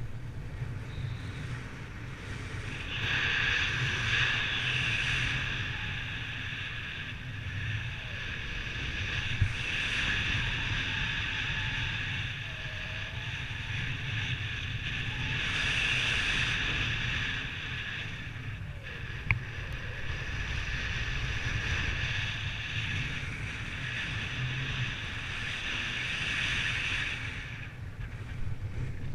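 Wind rushing over the microphone in flight: a steady rumbling hiss with a higher whistle that swells and fades every few seconds, broken by two sharp clicks.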